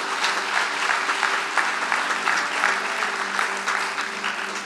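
Congregation applauding, a dense run of many hands clapping that tapers slightly near the end, over a steady held musical tone.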